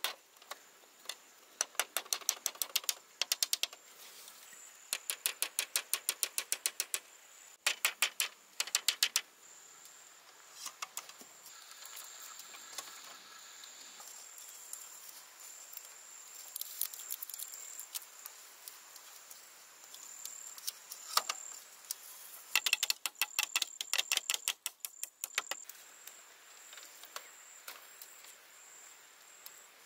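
Bursts of rapid, evenly spaced clicking, each lasting a second or two, come several times. From about ten seconds in, a steady thin high insect drone runs beneath them.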